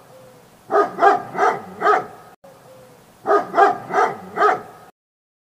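A dog barking in two runs of four quick barks, the same run heard twice with a short gap between.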